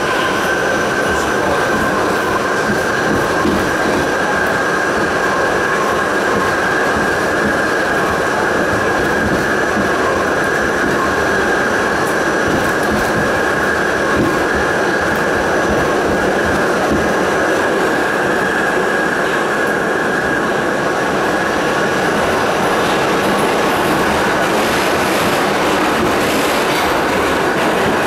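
R68 subway car running at speed through a tunnel, heard from inside the car: a loud, steady rumble and rattle of wheels on rail, with a steady high whine over it.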